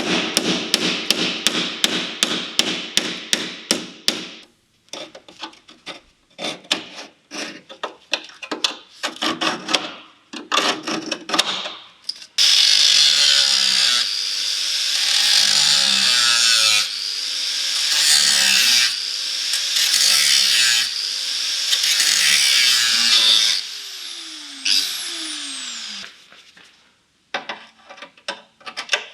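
Quick repeated taps on metal bodywork, then scattered clicks. About twelve seconds in, a handheld power tool starts working against sheet metal in the rust repair, its speed dipping and recovering under load every couple of seconds, then winding down and stopping near the end.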